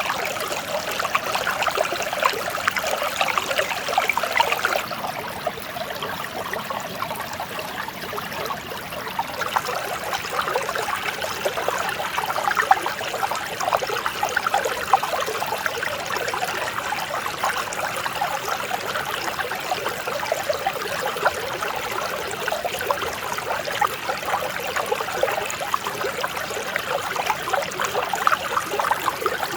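Clear mountain stream flowing steadily, a continuous trickling and babbling of water.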